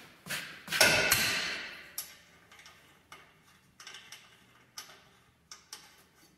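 Metal-on-metal work at a bolted steel suspension bracket on a Jeep's rear axle. A loud ringing clank about a second in is followed by a string of light, irregular metallic ticks from hand tools and hardware.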